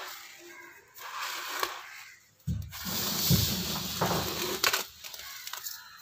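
Damp granulated sugar crunching and grating as a hand squeezes and works it together with egg white in a steel pot.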